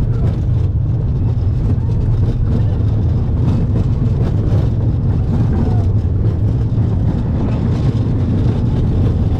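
Slinky Dog Dash roller coaster ride noise: a loud, steady low rumble of the coaster train running.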